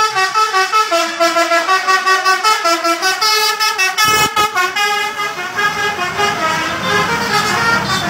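Basuri V3 multi-tone 'telolet' horn on a tour bus playing a rapid tune, its notes stepping quickly up and down in pitch. About four seconds in the tune breaks briefly as the bus passes close by, then carries on over the rumble of the bus.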